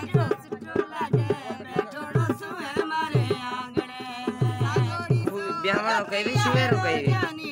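Women singing a folk wedding song together, over a dhol beating runs of quick low strokes in short groups.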